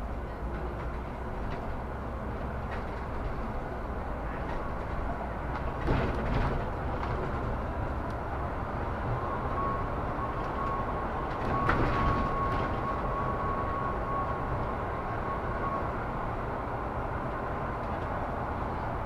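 A Solaris Urbino 18 articulated city bus under way, heard from on board: steady engine and road rumble, with a couple of knocks or jolts about six and twelve seconds in and a thin, steady whine from about nine to sixteen seconds.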